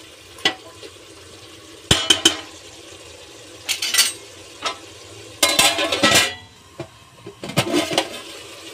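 Steel ladle scraping and clanking against an aluminium pressure cooker as mutton is stirred and fried, in irregular clattering strokes over a light sizzle; near the end the cooker's lid clanks as it is handled.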